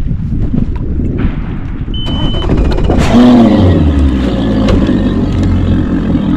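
Boat's outboard motor started: a short warning beep about two seconds in, then the engine catches about a second later, dips in pitch and settles into steady running.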